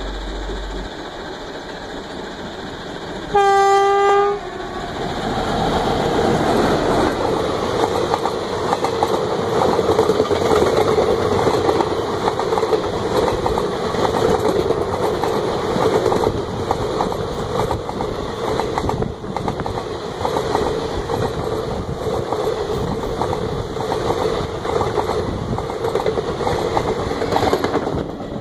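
A WAP-4 electric locomotive gives one loud air-horn blast, about a second long, a few seconds in. Then the train passes close by, its passenger coaches running with a steady rush and rapid clickety-clack of wheels on the rails to the end.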